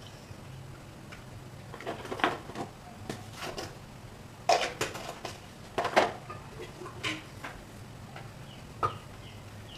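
Kitchen utensils and cookware clattering: a string of separate clinks and knocks, the loudest about four and a half and six seconds in, over a low steady hum.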